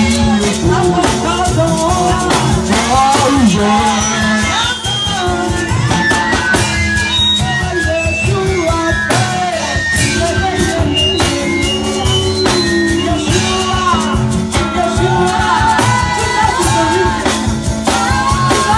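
Live gospel praise music: a woman sings the lead through a microphone and PA, backed by another singer, keyboard, drum kit and hand percussion, with a steady beat.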